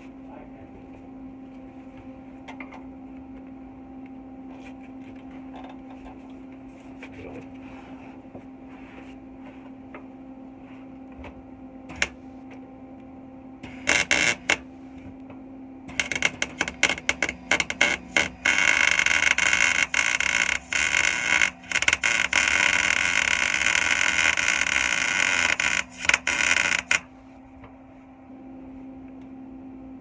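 Wire-feed welder laying weld on steel subframe connector tubing under the car: a short burst of arc crackle about halfway through, then a long run of steady sizzling crackle with a couple of brief breaks, stopping near the end. A low steady hum sits underneath throughout.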